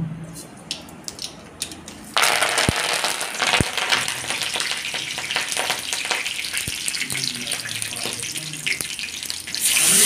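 Green chillies and curry leaves sizzling and spluttering in hot oil in a kadai, starting suddenly about two seconds in after a few light crackles from the mustard seeds. Near the end the sizzle gets louder as the curry batter starts to pour into the hot oil.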